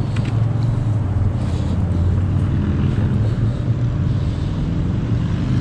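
A steady, low engine drone with no clear start or stop.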